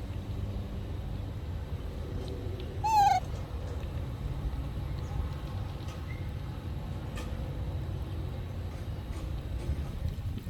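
A young monkey's single short, high call about three seconds in, wavering and falling slightly in pitch, over a steady low background rumble.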